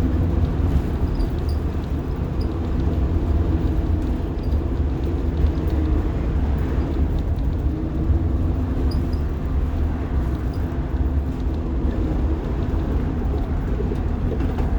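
Rear-mounted diesel engine of a 1990 Blue Bird All American school bus running as the bus drives, heard from inside the cabin as a steady low drone with road noise, its engine note shifting slightly.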